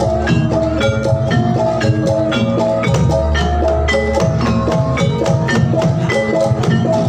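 Javanese gamelan music for a jathilan horse dance, played loud: a fast, even stream of struck metallophone notes over drums and a heavy, steady bass.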